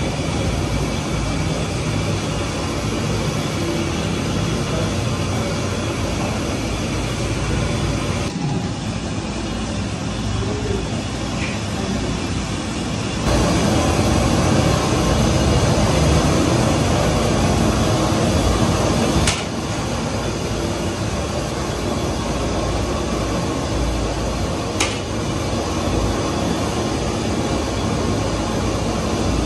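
Steady roar of a gas burner firing under a large aluminium pot of boiling biryani stock. The roar is louder for several seconds around the middle, and two sharp knocks come in the second half.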